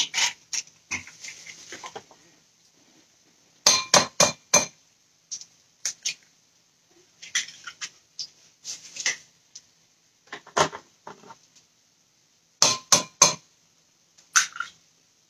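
Eggs tapped against the rim of a glazed ceramic mixing bowl to crack them: clusters of two to four sharp knocks every few seconds, with quieter shell handling between.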